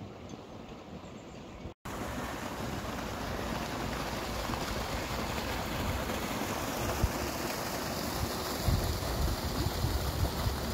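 Wind on the microphone: a steady rushing with uneven low buffets, loudest near the end. It starts after a cut about two seconds in; before the cut there is a quieter outdoor background.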